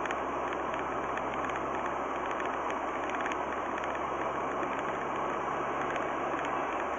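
Steady road and engine noise of a car driving, heard from inside the cabin: an even rush of tyre noise with a faint low engine hum underneath.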